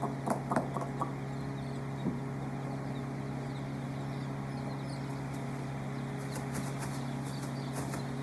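Many broiler chicks peeping, with a few louder calls in the first second and scattered high peeps after, over a steady low hum.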